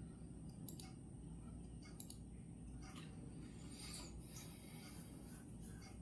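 Faint, irregular scratching and light clicks from writing at a desk, over a steady low hum and a thin high-pitched whine.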